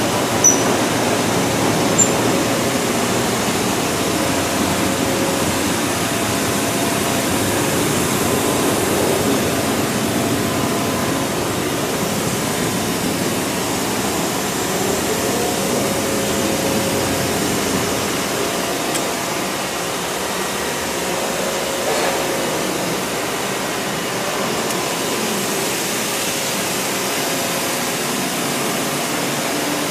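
Colton single-arm sigma-blade mixer's electric drive and gearing running steadily: an even mechanical whirr with a faint hum.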